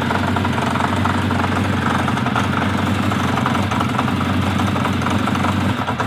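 Air-cooled four-cylinder engine of a 1980 Kawasaki Z 500 B motorcycle idling steadily, with a rapid mechanical ticking and knocking running through it. The cause is an unknown mechanical fault.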